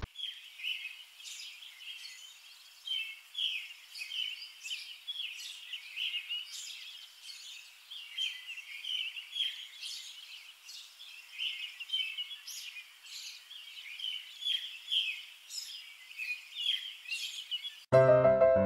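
A chorus of small birds chirping, many short high chirps overlapping without a break. Piano music starts suddenly near the end.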